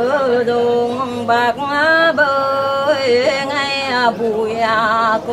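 A Mường folk song (hát Mường) sung unaccompanied by one voice, in long held notes that waver and slide from pitch to pitch.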